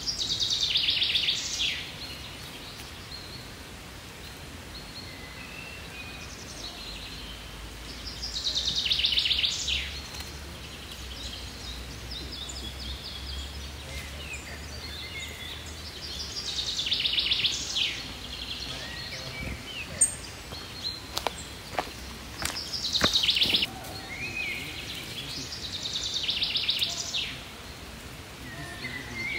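A songbird singing short, fast trilling phrases, repeated several seconds apart over steady outdoor background noise. A few sharp clicks come about two-thirds of the way in.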